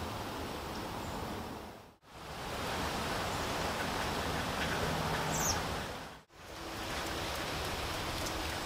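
Steady rain falling, an even hiss that dips out briefly twice. A short high chirp from a small bird a little past the middle.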